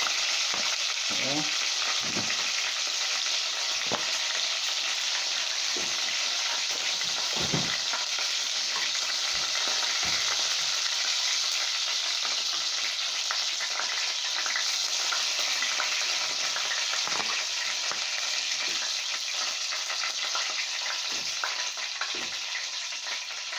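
Hot cooking oil sizzling steadily in a pot where chicken has been browned, with scattered pops and spits.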